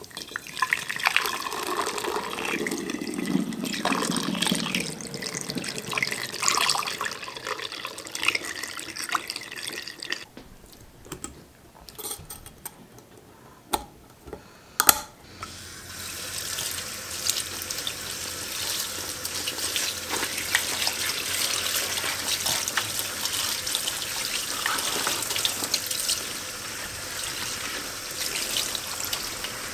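Kitchen tap running steadily into a sink as a nut-milk bag is rinsed under it, from about halfway through. Before that, a glass swing-top jar being handled, with a couple of sharp clicks as its clasp lid is shut.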